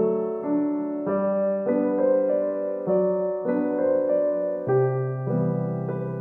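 Gentle background music on a piano-like keyboard, a new chord sounding about every half second.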